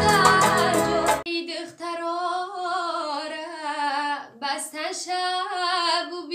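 Woman singing live, for about the first second over electronic keyboard accompaniment, after which the backing drops out and she sings alone in long, wavering held notes with vibrato.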